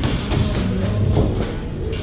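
Music playing, with a beat.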